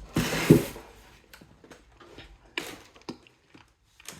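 Handling noise from an air hose and its fittings: a short rustle in the first second, then a few light clicks and knocks.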